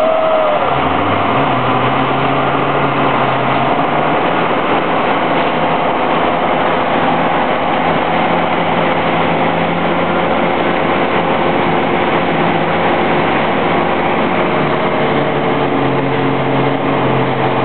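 Parasail tow boat's engine running steadily, its pitch rising about a second in, with wind and the rush of the boat's wake.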